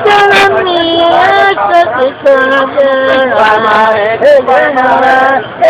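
Music with singing voices: held sung notes that step up and down in a melody, loud throughout.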